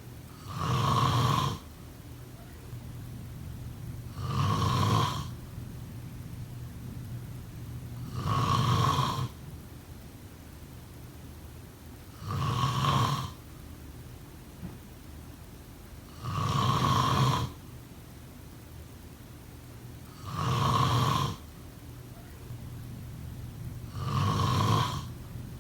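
A person snoring in a slow, regular rhythm: seven snores about four seconds apart, each lasting about a second.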